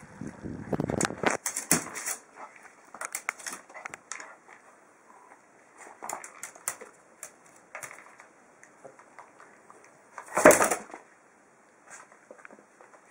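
A dog's claws scrabbling and tapping on an aluminium storage box as it jumps up and paws at a ball on the lid: irregular clicks and scrapes, with one loud thump about ten and a half seconds in.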